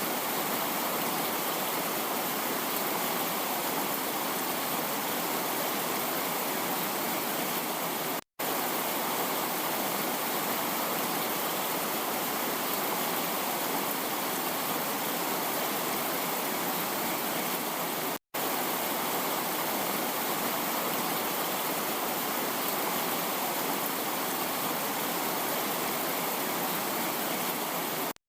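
Heavy rain falling as a steady, dense hiss. It cuts out to silence for a split second about every ten seconds, twice in the middle and once at the very end.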